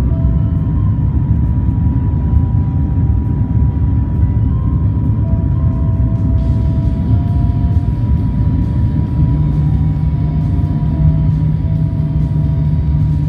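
Steady low cabin rumble of an airliner descending on approach, with a faint background music melody over it.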